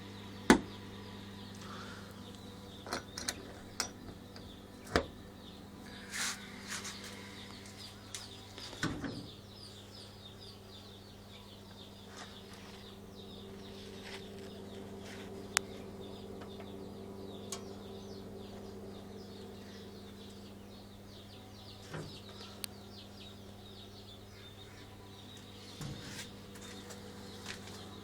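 Steady low electrical hum, most likely from the homemade refrigerator incubator, with faint, rapid high chirping of birds throughout. Scattered sharp clicks and knocks, the loudest about half a second in.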